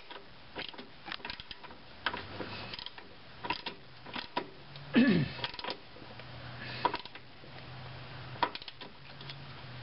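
Half-inch drive socket ratchet clicking in irregular runs as it tightens the lower control arm's front mounting bolt on an 18 mm socket. About five seconds in there is a short falling tone.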